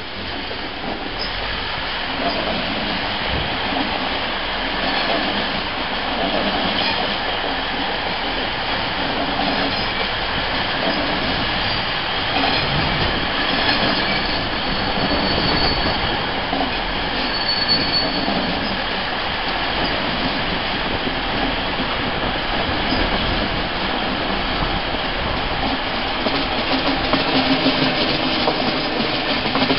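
Regional train running into the station, a steady rolling rumble with wheels clacking over rail joints. High, thin wheel or brake squeal comes in about halfway through.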